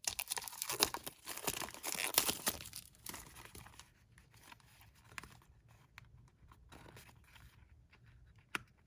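Paper packaging being torn open and crinkled by hand: a dense crackling rustle for about three seconds, then quieter handling rustles and small clicks.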